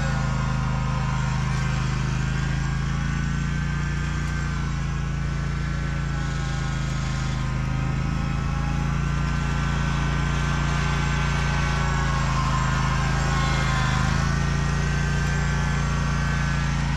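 Zero-turn mower engine running steadily while pulling a spring-tine drag rake over torn-up turf, with a higher whine that wavers slightly in pitch over the steady engine drone.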